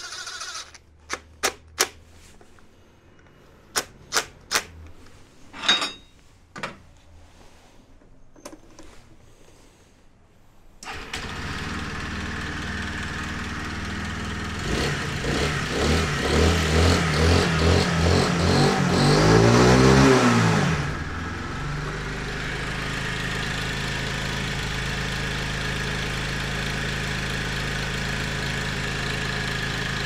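A cordless drill-driver runs in several short bursts, driving home bolts on the SYM Wideevo 125 scooter's transmission cover. About eleven seconds in, the scooter's 125 cc engine starts and is revved repeatedly, then settles into a steady idle: a sound test of its freshly restored muffler.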